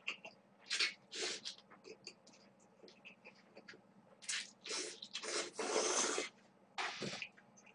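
A man slurping spicy bibim-myeon noodles off chopsticks in a run of short, noisy slurps, a few about a second in and more from about four seconds on, the longest lasting most of a second, with soft mouth clicks between.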